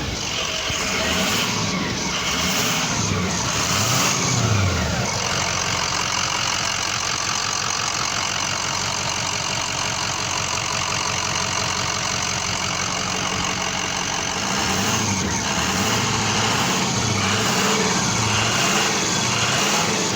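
Ford F-250 pickup's engine running, its low pitch rising and falling about once a second in the first few seconds and again near the end, steady in between.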